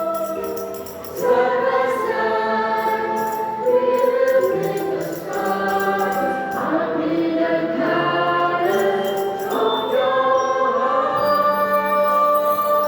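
Choir singing a song with instrumental accompaniment, sustained held notes changing every second or two.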